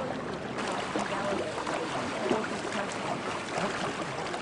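Water washing and splashing along the hull of an outrigger dugout canoe as it is paddled, a steady splashing rush with paddle strokes dipping in.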